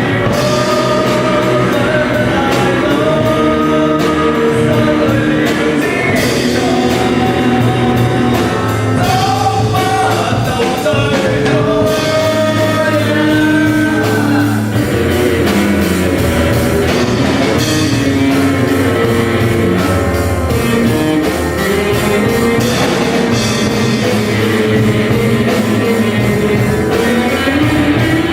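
Rock band playing a song with a lead singer, guitars and drum kit.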